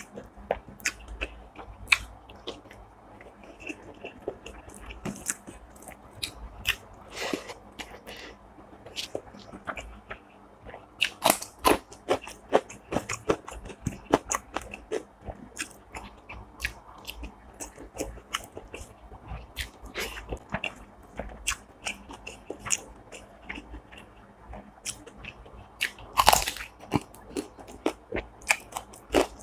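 Close-miked eating: a person biting and chewing crisp food with many sharp crunches and crackles, and a loud crunch near the end.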